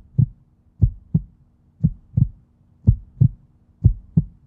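Heartbeat sound effect: paired lub-dub thumps, about one beat a second, over a faint steady hum.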